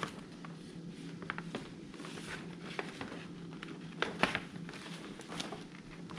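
Large paper instruction sheet being opened out and handled: irregular crisp rustles and crackles of the paper, loudest about four seconds in, over a low steady hum.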